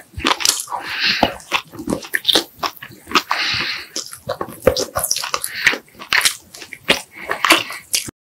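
A person biting and chewing food close to the microphone, with many short crunches and smacking clicks. The sound cuts off abruptly near the end.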